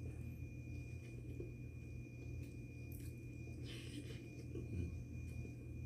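A person biting into and chewing a mouthful of rolled kubus, the Arabic flatbread, with small faint chewing sounds over a steady low hum.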